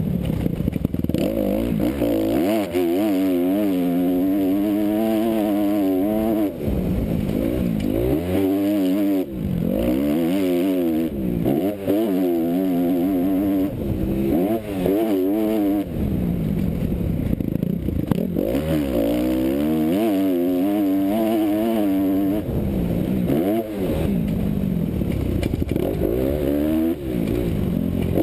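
Motocross bike engine heard from the rider's helmet, revving up and dropping back over and over, about every one to two seconds, as the rider works the throttle around the dirt track.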